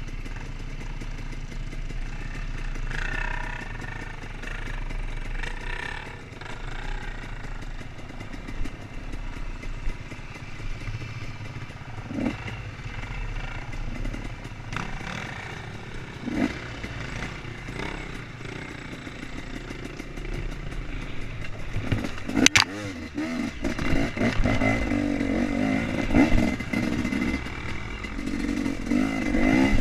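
KTM 250 EXC two-stroke enduro bike's engine running under load at low revs on a rutted dirt climb. A sharp knock comes about three-quarters of the way through, and after it the engine grows louder with repeated revving.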